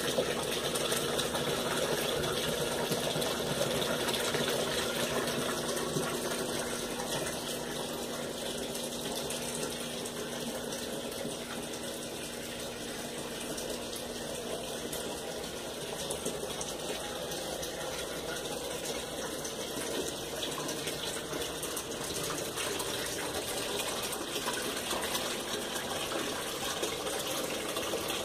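Washing machine running with a steady rush of water, with a motor hum that fades out about six seconds in.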